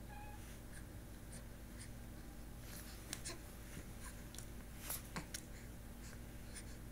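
Quiet small-room background with a low steady hum and scattered soft clicks and rustles, a few sharper ones past the middle.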